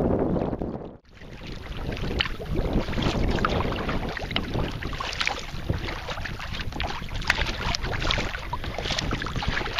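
Wind buffeting the microphone, then, after a break about a second in, choppy lake water lapping and splashing against a sea kayak's bow as it is paddled along, with many small quick splashes and wind noise underneath.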